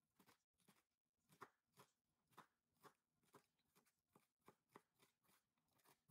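Chef's knife chopping asparagus on a wooden cutting board: faint, even crunching cuts, about two or three a second.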